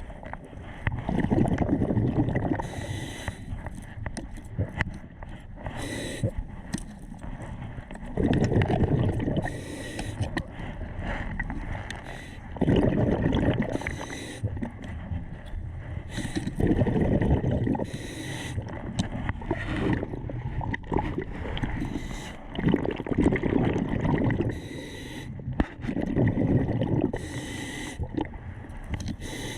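Muffled underwater recording of a diver's breathing: a low gurgling rush about every four seconds, with a faint steady hiss between.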